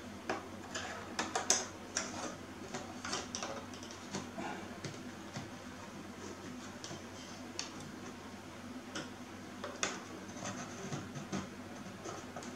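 Irregular light clicks and taps of an Azio Retro Classic keyboard's parts being handled and worked at during disassembly. They are busiest in the first two seconds, with one sharper click near ten seconds.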